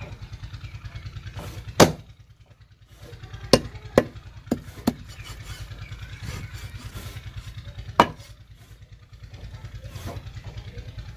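Cleaver chopping through a large fish into a wooden log chopping block: six sharp knocks, a loud one about two seconds in, a quick run of four between about three and a half and five seconds, and another loud one about eight seconds in, over a steady low hum.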